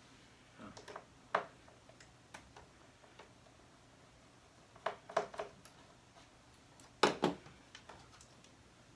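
Scattered light clicks and knocks of small parts being handled inside an opened iMac as its internal speaker is shifted to reach the screws beneath. There is a quick cluster of clicks about five seconds in and the loudest pair of knocks about seven seconds in.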